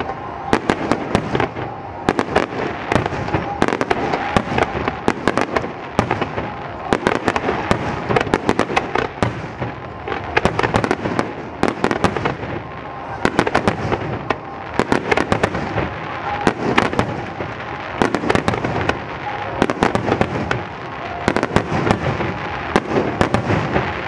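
Finale barrage of aerial firework shells bursting: rapid, overlapping bangs, several a second, without a break.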